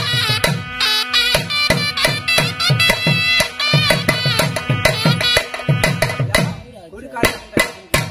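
Sannai, a shehnai-type double-reed pipe, playing a wavering folk melody over a quick, steady drum beat. The piping stops about six seconds in, leaving a few sharp drum strikes.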